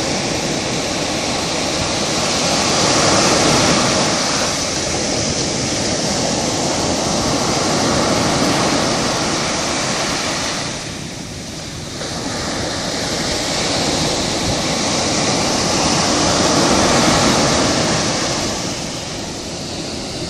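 Ocean surf breaking and washing up the sand: a steady rush of water that swells and eases as each wave comes in, dipping briefly about halfway through.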